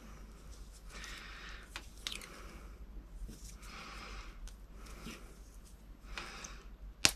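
Adhesive tape being pulled off the roll and wound around an electrical connector: a series of short rasps, roughly one a second, with a sharp click near the end.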